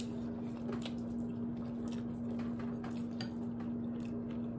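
Close-up eating of ramen noodles: wet chewing and mouth clicks, with scattered short smacks, over a steady low hum.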